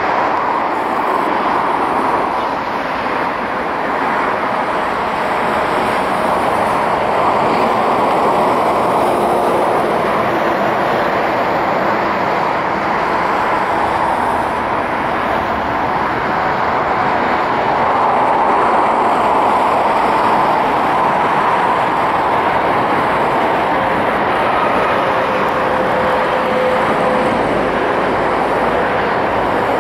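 Jet engines of a Boeing 737-800 airliner, CFM56 turbofans, during landing and rollout: a steady rushing noise that holds at one level.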